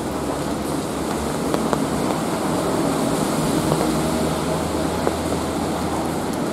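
Steady rain falling in a city, with a low rumble of traffic underneath and a few sharp ticks of drops striking something hard.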